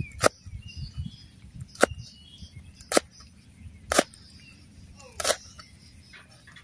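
Cleaver chopping red chillies on a round wooden chopping board: five sharp chops about a second apart. Birds chirp faintly behind.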